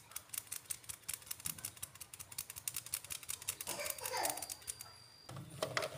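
Palm tapping the side of a metal mesh flour sieve in a rapid run of light taps, about five a second, shaking flour through the mesh. The taps stop about three and a half seconds in.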